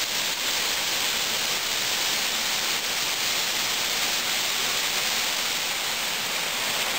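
Waterfall pouring into a rocky pool: a steady, even rushing hiss of falling water.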